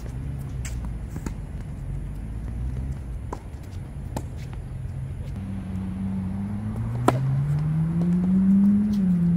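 Tennis balls struck by rackets in a rally: sharp pops a second or more apart, the loudest about seven seconds in. Under them runs a vehicle engine that rises in pitch over the last few seconds.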